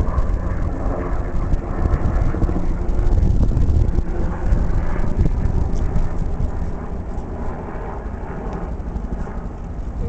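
Wind buffeting the microphone: a loud, steady low rumble that churns and gusts, easing slightly in the second half.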